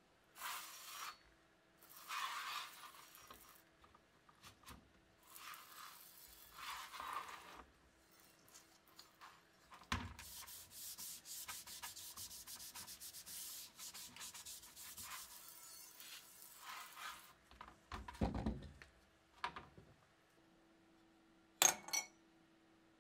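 Wet steel blade of a 1913-pattern bayonet being scrubbed by hand on a plastic tray. There are a few separate rubbing strokes, then a knock, then a long stretch of fast steady scrubbing. A sharp clink comes near the end.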